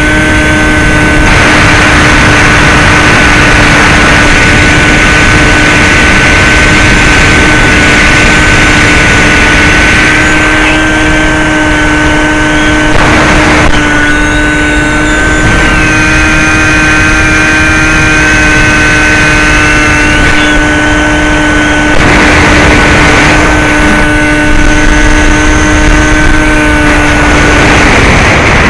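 Bixler 2 model plane's brushless electric motor (NTM 35-30A 1400kv) driving a 9x6 propeller, a steady high whine heard from the plane itself, with loud air rush over the microphone. The motor tone cuts off shortly before the end as the throttle comes off.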